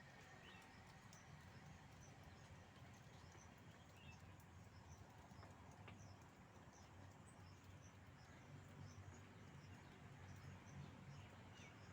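Faint outdoor natural ambience, close to silence, with soft, high, short chirps repeating throughout over a low hum.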